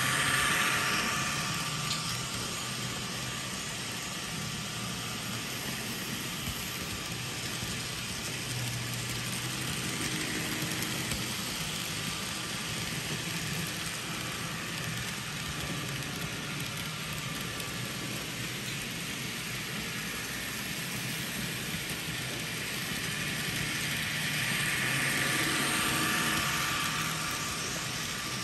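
Mehano N scale electric model trains running around their track loops: a steady whir of small motors and wheels on rail. It grows louder as a train passes close by near the start and again about 25 seconds in.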